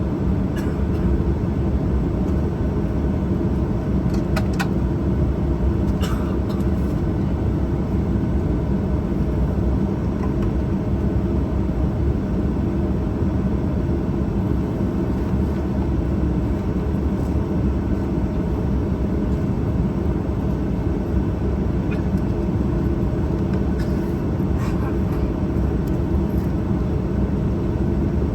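Steady cabin noise inside a Boeing 737-800 with its CFM56-7B engines running: an even hum and rush with a few faint clicks.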